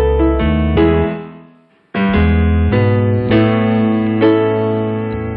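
Background piano music. It fades out about a second in, is near silent for a moment, then starts up again sharply about two seconds in.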